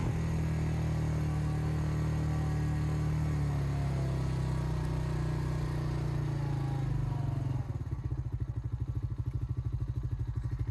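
Four-wheeler (ATV) engine running steadily as it rides along. About three-quarters of the way through it drops to an idle with an even, rapid pulsing beat as the machine stops.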